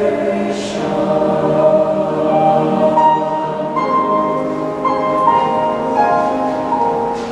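Mixed choir of men's and women's voices singing, with held notes that move from chord to chord.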